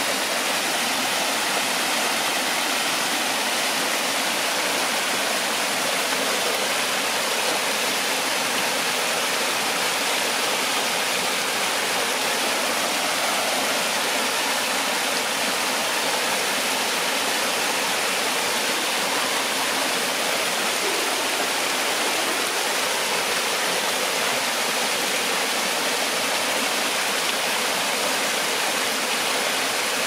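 Forest stream, water rushing steadily with an even, unbroken sound.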